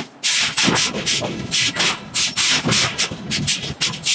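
Hot-forging hammer with a glowing iron billet on its anvil, giving off irregular sharp hissing bursts, about two or three a second, over a low rumble.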